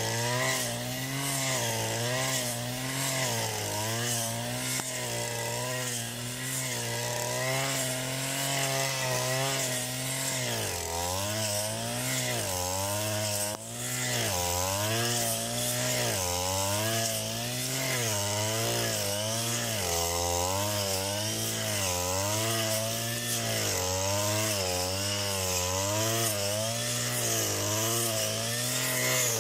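Petrol brush cutter running under load as it cuts tall grass. The engine pitch holds steady at first, then from about ten seconds in dips and recovers every second or so as the cutting head swings through the grass.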